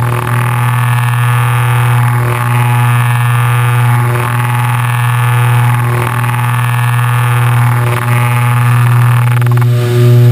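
The Piper PA-31-350 Navajo Chieftain's twin piston engines and propellers run in a steady, loud drone heard inside the cockpit, with a strong low hum. The sound is coarse and buzzy from vibration in the camera mount.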